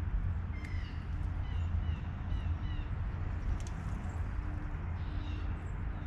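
Blue jay calling: a quick run of about five short, harsh descending calls in the first half, over a steady low rumble.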